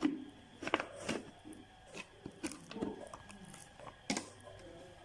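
Irregular clicks, knocks and crackly rustling of an electric mixer's plastic parts being handled, with the sharpest knocks at the very start, about a second in and near the end.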